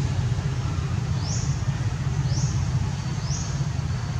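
A steady low rumble, with a bird repeating a short, high, rising chirp about once a second.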